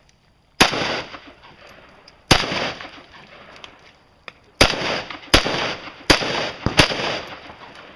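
About seven single gunshots fired at an uneven pace, between under a second and about two seconds apart, each trailing off in echo. It is a competitor working through a timed practical-shooting course of fire.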